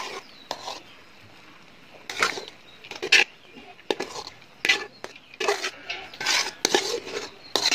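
Metal spoon scraping and knocking against the pots at irregular intervals as cooked rice is scooped out and spread over the beef curry layer of a biryani.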